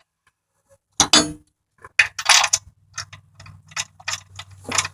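Ratchet wrench clicking as it is swung back and forth on a spark plug socket, about three clicks a second, after a single knock about a second in. A faint low hum runs underneath from about two seconds in.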